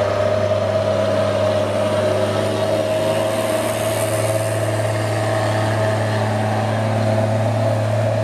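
Mitsubishi box truck's diesel engine running steadily, a constant low drone.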